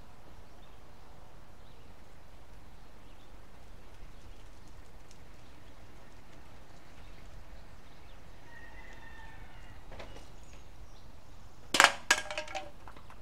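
Low steady background noise, then near the end a quick cluster of loud, sharp clacks, like a light metal object knocking against a hard surface.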